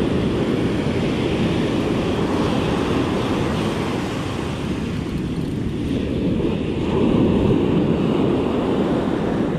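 Surf breaking and washing up the sand, with wind rumbling on the microphone. The wash swells about seven seconds in.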